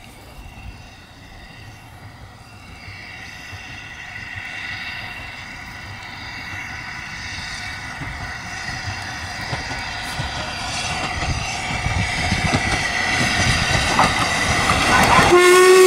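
Double Fairlie narrow-gauge steam locomotive approaching with its train, its exhaust beats and running noise growing steadily louder, with high steady squealing tones above. About a second before the end a loud steam whistle blast begins.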